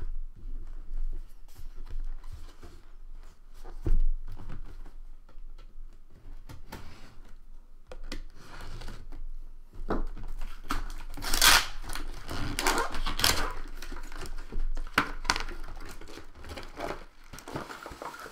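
Plastic wrapping on a sealed trading card box being torn open and crinkled, with scattered rustling and handling of packaging, busiest about two thirds of the way through.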